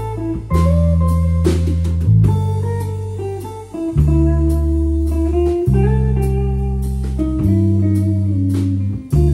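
A guitar, bass and drums trio playing a waltz. An electric guitar plays the melody over long low bass notes that change about every second and a half, with light drum and cymbal strokes.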